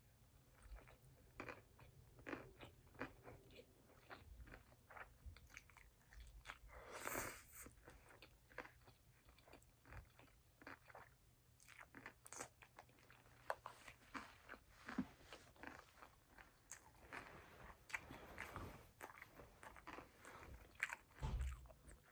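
Faint, close-miked chewing and mouth sounds of a person eating a poke bowl: many small wet clicks and smacks, with one louder brief noise about seven seconds in.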